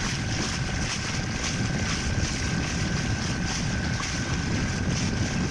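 Fishing boat's engine running steadily at speed, with wind buffeting the microphone.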